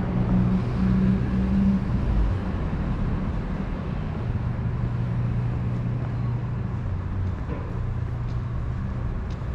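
A motor vehicle's engine running with a steady low hum that shifts lower about two seconds in.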